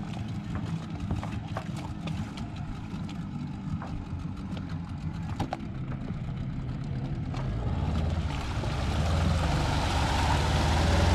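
Small outboard motor on an inflatable dinghy running just after starting, first at idle, then growing louder from about seven and a half seconds in as it speeds up, with a rising hiss of water.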